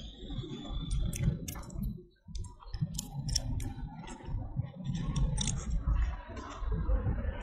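Baby macaque chewing and biting fruit close to the microphone: irregular sharp clicks and smacks over a low rumble.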